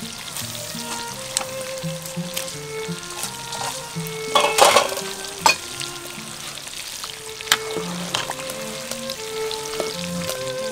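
A pot of shrimp and young banana stem soup bubbling at a rolling boil, with a louder splashing burst about halfway through as more banana stem slices go in. Soft instrumental music plays underneath.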